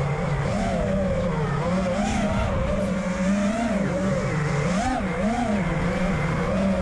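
FPV racing quadcopter's electric motors and propellers whining, the pitch rising and falling quickly with each throttle change as it weaves through trees.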